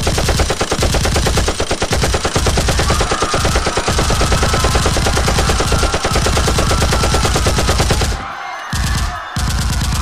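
Loud, sustained rapid machine-gun fire, a dense unbroken stream of shots that thins out briefly about eight seconds in. A faint melody runs underneath from about three seconds in.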